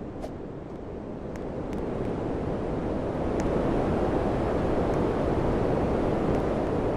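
Air conditioner's fan blowing air, a steady rushing noise that comes on suddenly and builds up over the first few seconds before holding steady, with a few faint clicks.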